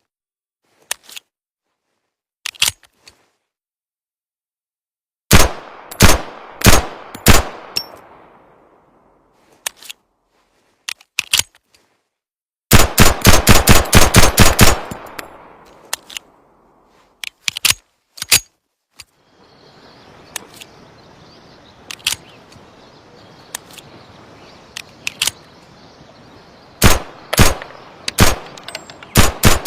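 Colt M1911 pistol firing: a few faint metallic clicks, then single shots about half a second apart, a rapid string of about ten shots in two seconds, and more shots near the end over a steady background hiss.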